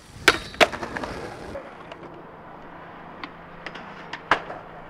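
Skateboard on concrete: two loud sharp board cracks within the first second, then wheels rolling steadily with a few light clicks and one sharp crack of the board about four seconds in.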